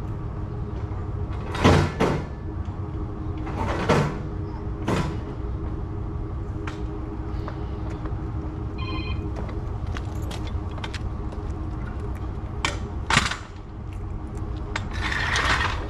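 A steady low engine hum under scattered sharp metal clanks and knocks, the loudest about two seconds in and at about thirteen seconds, with a longer noisy clatter near the end.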